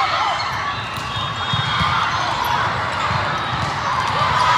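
Busy volleyball hall din: thuds of volleyballs being hit and bouncing on many courts, a few sneaker squeaks on the sport-court floor, and a murmur of crowd voices.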